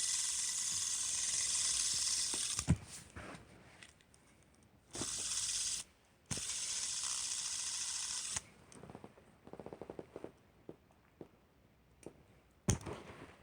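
Bluetooth fidget spinner making a steady whirring hiss that starts and stops abruptly three times, with handling clicks and runs of fast ticks in between.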